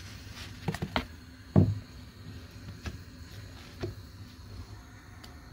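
Kitchen handling sounds at a gas stove: a few light knocks of cookware being moved, with one heavier thump about one and a half seconds in, over a low steady hum.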